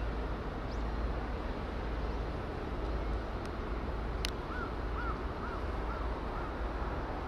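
A bird calling five short times in quick succession, just after a sharp click past the middle, over steady outdoor background noise with a low rumble.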